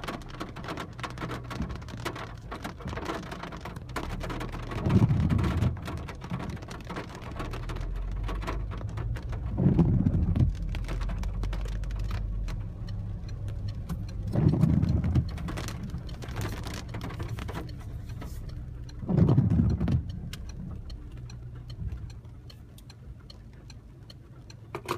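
Rain pattering on a car's windscreen and body, heard from inside the cabin, over the low steady run of the engine. A louder windscreen-wiper swish comes about every five seconds, and the rain grows fainter near the end.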